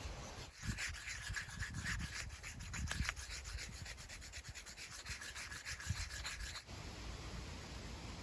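A wet deer antler scraped back and forth on a whetstone in rapid, even strokes, grinding it down. The scraping starts about half a second in and stops about a second and a half before the end.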